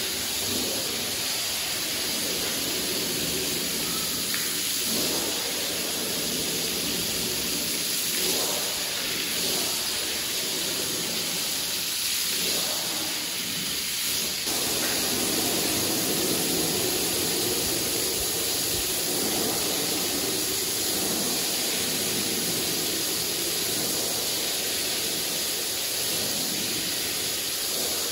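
Water spraying onto a carpet, a steady hiss that grows slightly fuller about halfway through.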